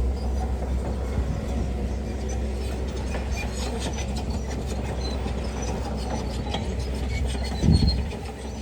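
Heavy earthmoving machine's diesel engine running with a steady low rumble, with rapid metallic clicking and squeaking for several seconds and a heavy thump near the end.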